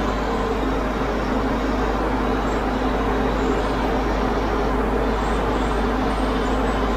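Mr Hobby airbrush spraying solvent-based candy green paint: a steady hiss of compressed air, with a steady motor hum underneath.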